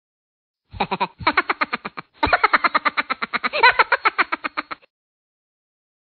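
Intro sound effect: a rapid run of short pitched blips, about ten a second, in three bursts with brief gaps between them. It stops a little before five seconds in.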